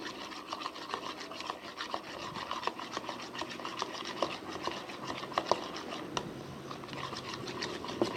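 Slime mixture being stirred in a container with a stirrer: continuous scraping with many small sticky clicks as the activator works through it.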